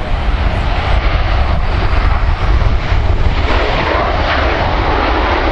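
Boeing 737-800's CFM56-7B jet engines running loud and steady during the landing rollout, the roar growing louder and harsher about halfway through.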